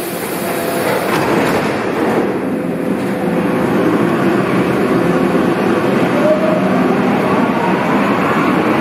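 Berlin U-Bahn train pulling out of an underground station: steady rolling rumble, with a motor whine rising in pitch from about six seconds in as the train gathers speed.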